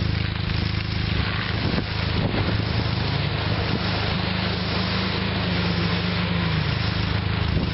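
Off-road Suzuki Vitara engines running with a steady low hum. About four seconds in one engine's note climbs as the Vitara pulls away up the muddy track, then drops back shortly before the end.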